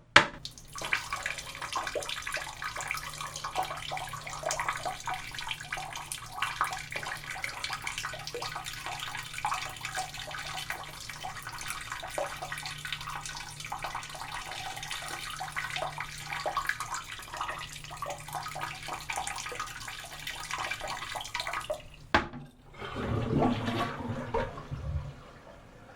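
A man urinating into the water of a toilet bowl: a steady splashing stream lasting about twenty seconds. Near the end there is a click, then the toilet flushes with a louder, lower rush for about three seconds.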